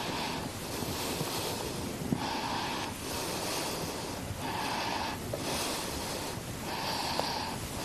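A person breathing in and out close to the microphone, with an airy, snort-like sound, in a steady rhythm of a swell about every second and a bit.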